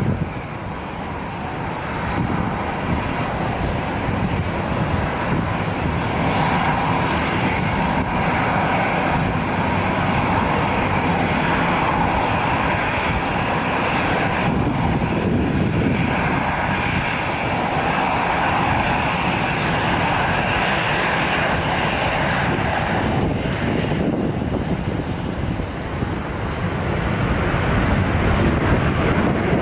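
Large jet airliner coming in to land: its engines make a continuous loud rush with faint steady whining tones, swelling near the end.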